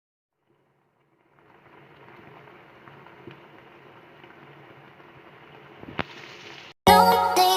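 Food frying in a pan: a steady soft sizzle with a few small crackles. Loud electronic music starts suddenly near the end.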